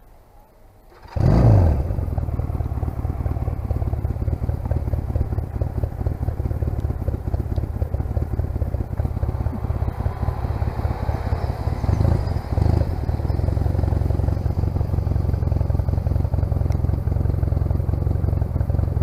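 1996 Honda CMX250C Rebel's air-cooled 234 cc parallel-twin engine starting about a second in, then idling steadily. There is a brief rise in revs about twelve seconds in.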